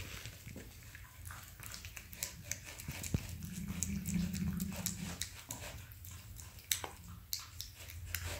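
A Persian cat eating salmon: many quick wet clicks and smacks of chewing and licking, with a low hum lasting a second or so about halfway through.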